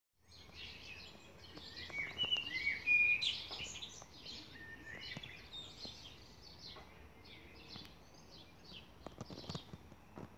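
Garden birds singing and chirping, many short overlapping calls and pitch glides, loudest in the first few seconds. A few soft knocks near the end.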